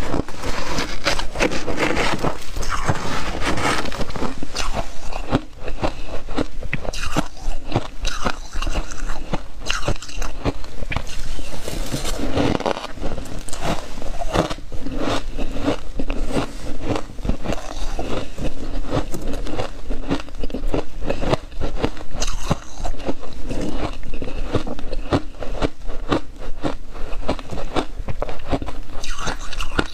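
Continuous crunching of freezer frost ice being bitten and chewed, with a spoon scraping and scooping through the frost in a plastic freezer drawer.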